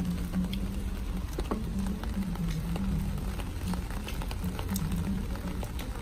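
Rain pattering, with scattered drops ticking irregularly on an umbrella overhead, over a steady low hum that shifts slightly in pitch.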